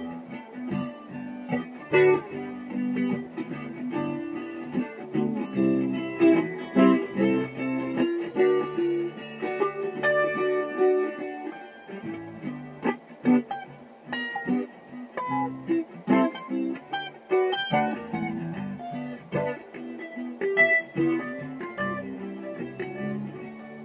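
Solo guitar played by hand: a free, improvised-sounding run of picked single notes and short chords, trailing off quieter near the end.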